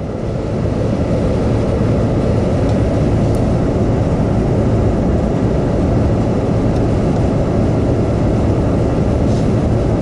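Suburban RV furnace's blower fan running steadily with a low hum, the burner unlit.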